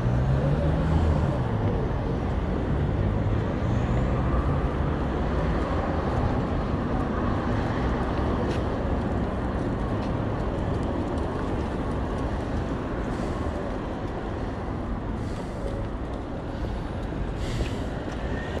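City street traffic: car and bus engines running and passing in a steady hum, with one engine note rising and falling in the first couple of seconds.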